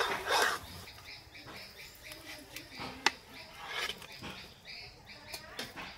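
A metal spatula scraping and clicking as a fried omelette is slid out of an iron karai onto a plate, with one sharp click about three seconds in. Small birds chirp repeatedly in the background.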